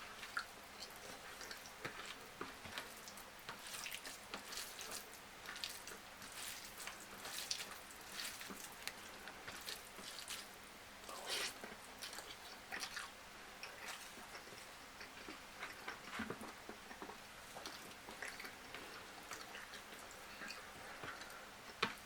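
A person eating and chewing close to the microphone, with a steady string of small wet clicks and smacks.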